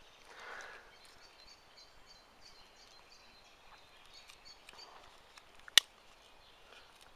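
One sharp click from handling a Victorinox Delémont Ranger Grip 61 pocket knife, about three quarters of the way through, with a soft rustle near the start. Faint bird chirps in the background.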